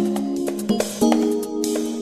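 Background music: held pitched notes that change about once a second over light percussion.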